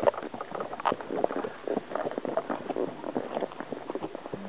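Horse hooves clopping on a dry dirt and gravel trail, in a run of irregular steps.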